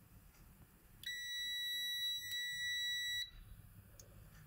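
WinAPEX ET8103 digital multimeter's continuity buzzer giving a steady high-pitched beep for about two seconds, starting about a second in, with a brief break in the middle. The beep shows that the USB connector's Data 2 line is connected.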